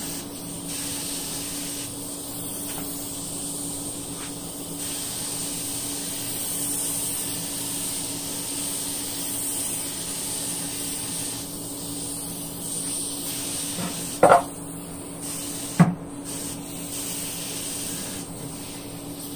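Compressed-air mini detail spray gun (Central Pneumatic) spraying thinned polyurethane: a steady hiss of air and atomised finish with a steady low hum beneath. Near the end come two short knocks about a second and a half apart.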